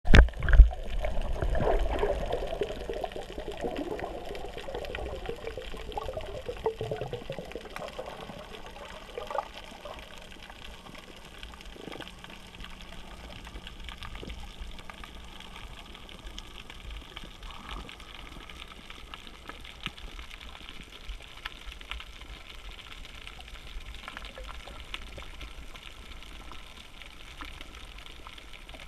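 Underwater sound picked up by a submerged camera: muffled water gurgling and sloshing, loudest with a few thumps at the very start and fading over the first several seconds. It then settles into a steady faint hiss with a light crackle of small clicks.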